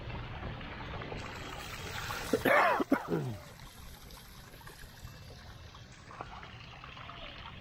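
Water trickling steadily. About two and a half seconds in there is a short, loud voice-like sound that falls in pitch.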